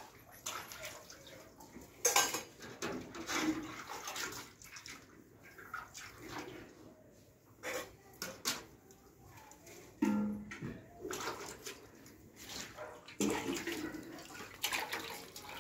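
Steel dishes being washed by hand: water sloshing and metal pots and utensils clinking, with the scrape and rustle of grain being pushed into a large aluminium basin. The clinks and scrapes come irregularly; the sharpest is about two seconds in.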